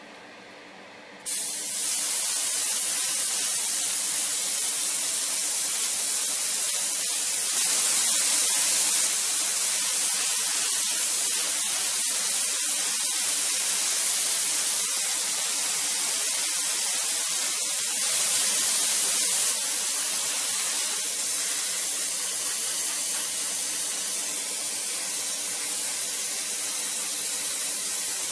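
Airbrush spraying gloss black paint: a steady hiss of air and paint that starts suddenly about a second in, swelling briefly twice.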